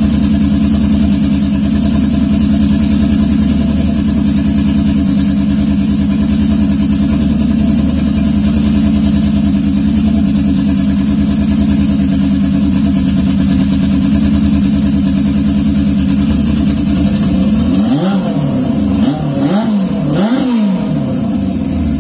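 Turbocharged Honda CB750 SOHC inline-four engine idling steadily, then revved a few times in quick succession near the end, the pitch rising and falling with each blip.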